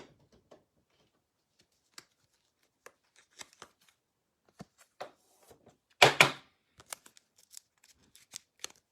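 Trading cards being handled: scattered soft clicks and slides of cards, with one louder short rustling scrape about six seconds in.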